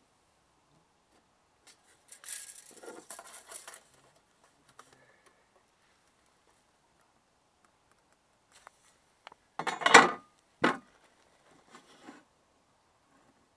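Hand tools handled on a plywood sheet: a tape measure and a metal square scraping and rustling against the wood about two seconds in, then a louder metallic clatter and a sharp knock about ten seconds in.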